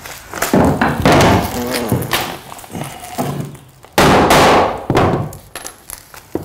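Several loud knocks as wooden floorboards are hammered and knocked into place, with rougher wood sounds between the blows.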